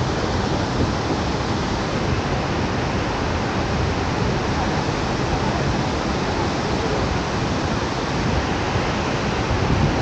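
Steady rushing roar of a large waterfall, an even continuous noise with no breaks.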